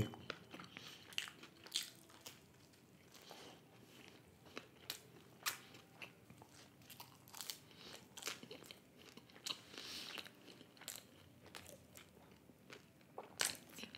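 Close-miked chewing of a slice of Domino's cheese-burst pizza: faint, irregular crunches and mouth clicks.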